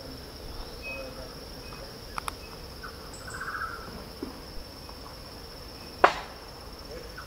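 Forest insects keep up a steady, high-pitched shrill drone. A short trill sounds about three seconds in, two light clicks come near two seconds, and a single sharp knock about six seconds in is the loudest moment.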